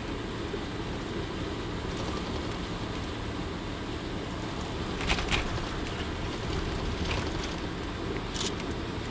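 Steady low rumble of engine and tyre noise heard from inside a vehicle cruising on an expressway. A few short sharp clicks or rattles come through about five seconds in, again around seven seconds, and near the end.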